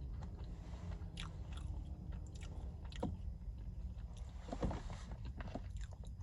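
A person chewing a mouthful of food close to the microphone, with a few short, soft mouth clicks and smacks, several of them together near the end.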